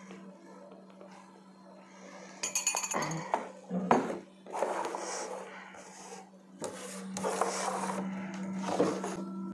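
Glass jars, a spoon and a bowl clinking and knocking as they are handled while hand-feeding formula is prepared, with a sharp cluster of clinks about two and a half seconds in, then rustling and scraping, over a steady low hum.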